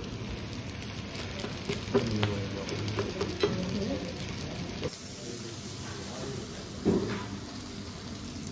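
Hot kebab meat sizzling on a steaming serving platter, a steady hiss, with a few sharp clinks of metal serving utensils.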